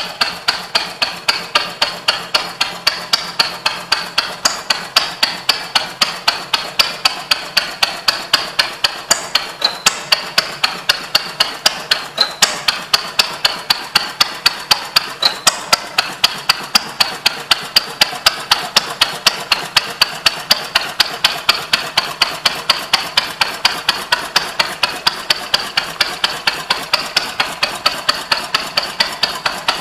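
Bruneau 12 hp vintage stationary engine running slowly and steadily, each stroke a sharp knock, roughly three a second.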